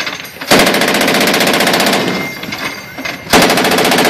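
A mounted .50-calibre heavy machine gun firing two long bursts of rapid fire, the first starting about half a second in and lasting about a second and a half, the second starting near the end; the fire fades out in a trailing echo between them.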